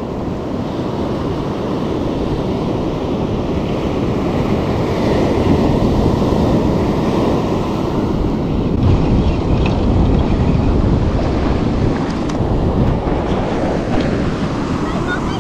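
Ocean surf washing steadily onto the beach, with wind on the microphone. The noise builds over the first few seconds and then holds.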